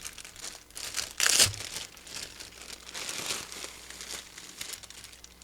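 Packaging crinkling and rustling as it is handled and pulled open, with the loudest burst a little over a second in and the rustling dying away near the end.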